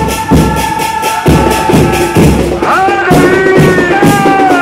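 Music with drums beating a steady rhythm of about two and a half strokes a second, under a long held high note that gives way to a sliding, rising melody about three seconds in.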